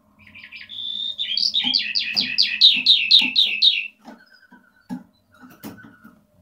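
Eurasian skylark singing: a short warbled phrase, then a fast run of about a dozen repeated downward-sweeping notes that ends about four seconds in, followed by quieter, lower notes. A few short knocks and clicks sound around the song.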